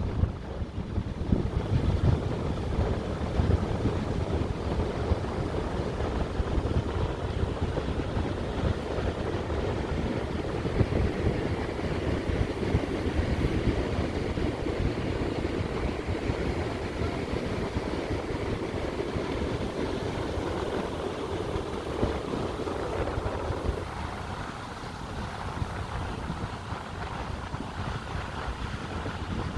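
Wind buffeting the microphone over a steady rush of sea surf, easing a little about three-quarters of the way through.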